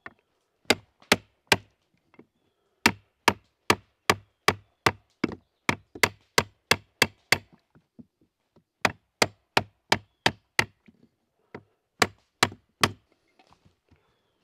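Hatchet poll knocking on a wooden rib, driving it into place in a birch bark canoe. Sharp knocks of wood come in runs of about two or three a second, with short pauses between the runs.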